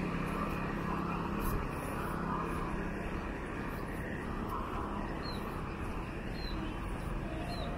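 Street traffic ambience: a steady wash of road noise, with a passing vehicle's engine hum fading out in the first couple of seconds. Three short high chirps sound in the second half.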